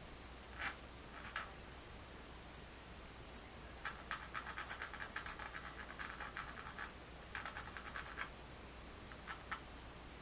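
Pencil sketching on the painting surface: two short scratches, then a long run of quick back-and-forth strokes in the middle, a shorter run after it and two last strokes.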